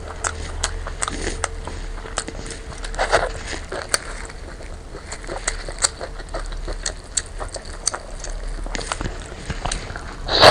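Close-miked eating of braised lamb leg: steady chewing with many wet mouth clicks and smacks, and a louder bite at the very end.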